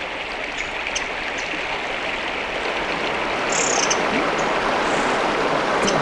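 A rocky mountain stream rushing steadily over stones, swelling a little about halfway through. A short high chirp about three and a half seconds in.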